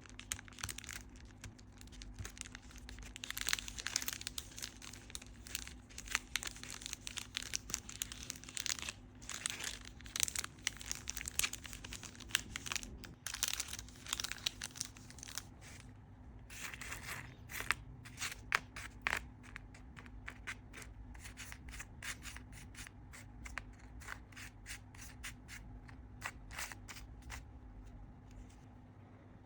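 Hands playing with a homemade fidget board: a run of quick crinkling, scratching and tapping noises, with a quieter stretch around the middle.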